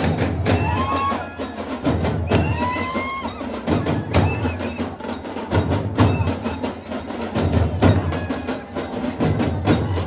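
Music with a steady beat of sharp percussive knocks, with high gliding tones rising over it a few times in the first half.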